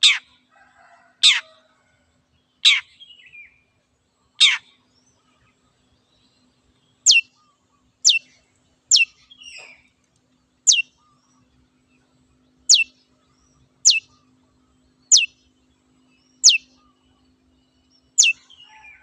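Long-tailed shrike (cendet) giving about a dozen short, sharp calls, each sweeping quickly down in pitch, repeated every one to two seconds with a longer pause about five seconds in.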